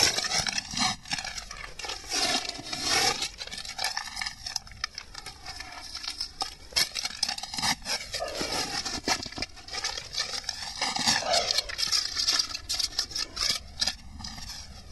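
Plastic bag crinkling and rustling as hands work at its knot and unwrap it, with many small irregular crackles.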